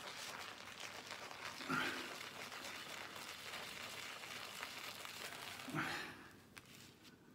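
Wet synthetic shaving brush swirled on homemade shaving soap in a tub, working up lather with a steady soft, wet crackling; it stops about six seconds in.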